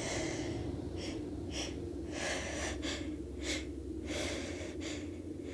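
A woman's sneeze buildup: a run of quick, gasping in-breaths and sniffs, roughly every half second, as a sneeze is coming on, over a steady low hum.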